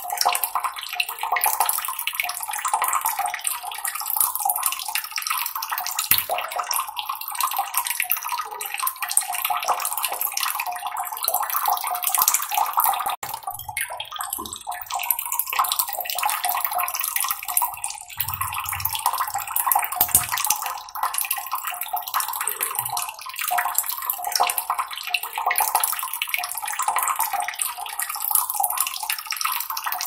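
Water trickling and splashing steadily, a continuous burbling wash of sound.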